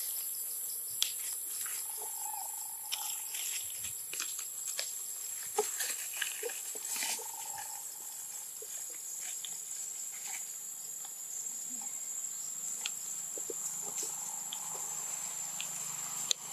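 Tropical forest ambience: a steady, high-pitched drone of insects, with scattered rustles and snaps of leaves and twigs as macaques move through leaf litter and branches. There are a couple of brief faint calls about two and seven seconds in.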